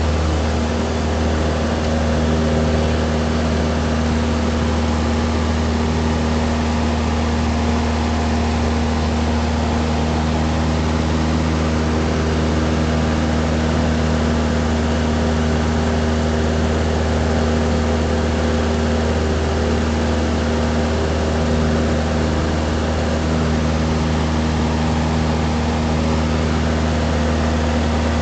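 Cessna 172's piston engine and propeller at takeoff power, heard from inside the cabin as a steady, loud drone through lift-off and the climb-out.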